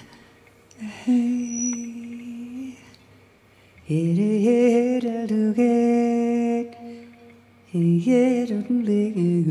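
A woman singing wordless jazz phrases: three phrases with short pauses between them, with bending notes, held tones and some vibrato.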